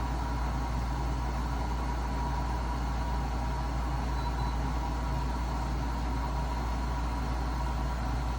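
BLACK+DECKER 14,000 BTU portable air conditioner running: a steady, unchanging hum with a deep low drone and a thin tone held on top.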